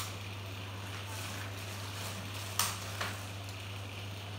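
Steady low hum with hiss, broken by a few short clicks, the loudest a little past halfway, another a moment later.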